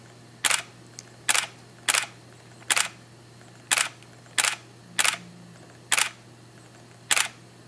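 Camera shutter firing again and again: nine single shots with a sharp double click each, coming about once a second at uneven intervals.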